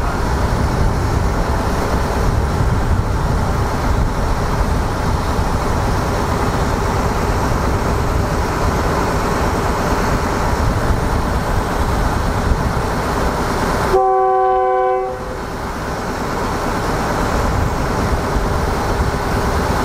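A State Railway of Thailand diesel railcar stands with its engines running, a steady low rumble. About 14 seconds in its horn sounds once, a chord-like blast lasting about a second, the warning before the train pulls out; afterwards the engine sound dips and then builds up again.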